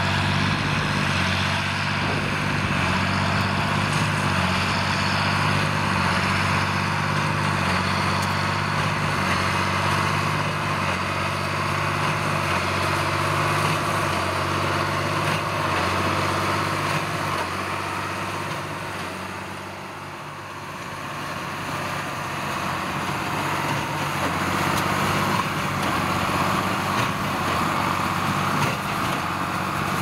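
John Deere 8410 tractor's six-cylinder diesel engine running steadily under load as it pulls a New Holland BB9080 big square baler baling corn stalks, with the baler's machinery working alongside. The sound fades briefly about two-thirds of the way through, then comes back up.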